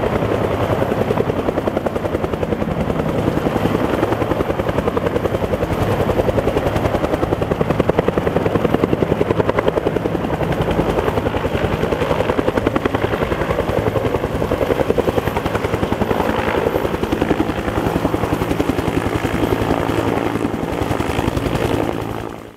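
Bell UH-1 Huey helicopter's two-bladed main rotor beating with a rapid, even rhythm as it hovers and flies low. The sound cuts off suddenly near the end.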